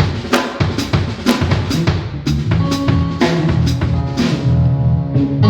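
Drum kit played through a sound system during a band sound check: sharp snare and cymbal hits two to three times a second over steady bass drum and low bass notes. The hits stop near the end while held pitched notes ring on.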